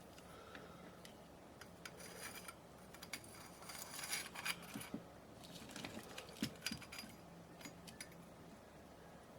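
Quiet handling of small tools and parts: scattered light clicks and metallic clinks, with short rustles around two and four seconds in.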